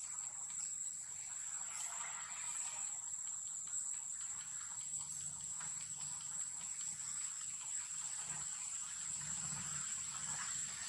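Insects droning: one steady, high-pitched tone, with faint scattered rustles beneath.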